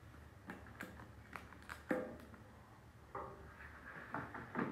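Hard plastic toy dinosaurs being handled: a string of light clicks and knocks as they are picked out of a plastic tub and set down, with one louder knock about two seconds in.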